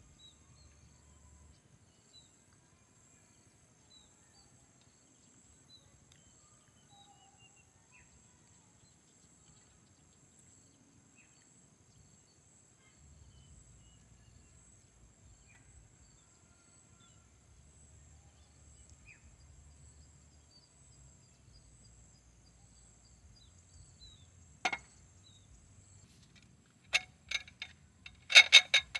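Faint, steady high insect chirring over a quiet background, broken near the end by a few sharp clicks or knocks, the loudest a cluster in the last two seconds.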